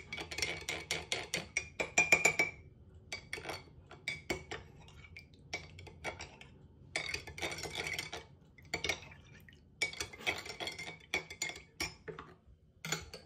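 A metal spoon stirring tomato paste into water in a small glass mug, clinking rapidly against the glass in several bursts with short pauses between them. The glass rings brightly with each run of clinks.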